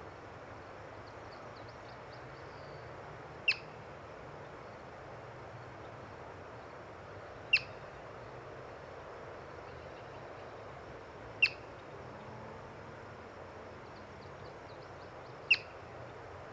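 Yellow-bellied marmot giving four short, high-pitched alarm chirps, evenly spaced about four seconds apart.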